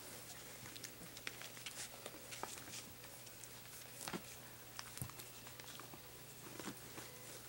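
Border collie puppies playing and scuffling, their feet making light, scattered taps and patters, over a faint steady hum.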